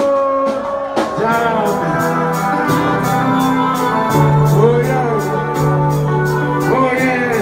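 Live reggae band playing: held keyboard chords over a bass line and a steady beat ticking about four times a second, with a man's voice singing over it.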